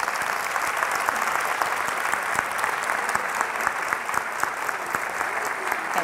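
Audience applauding after a speech: dense, steady clapping from many hands in a large hall.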